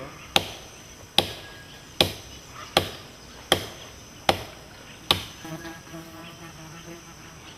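A wooden stick striking wood: seven sharp knocks at an even pace, about one a second, ending about two-thirds of the way through. A steady insect buzz underneath.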